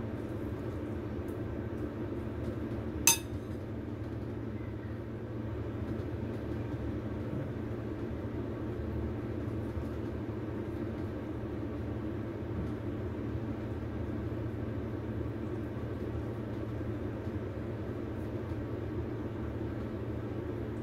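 A metal spoon clinks once against the mixing bowl about three seconds in, a short bright ring, over a steady low background hum.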